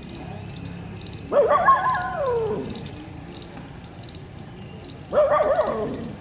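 Two drawn-out, wavering animal calls, each sliding down in pitch: the first, longer one about a second in, the second shorter one near the end.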